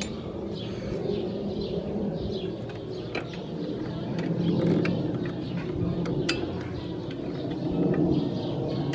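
Birds singing over a steady low vehicle rumble that swells twice, with a few sharp clicks from hands working on parts in a car's engine bay.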